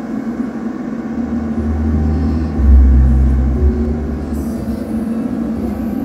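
Electronic dance track played loud through a dual-15-inch PA top speaker driven by an SLV BL7 class-H power amplifier in a sound test. Deep bass notes that step in pitch dominate, swelling to their loudest a little under three seconds in.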